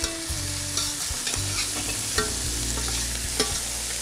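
Chicken breasts sizzling as they brown in a frying pan, with a spoon stirring tomato sauce in a steel saucepan. A few light clicks of utensils against the pans sound over a steady low hum.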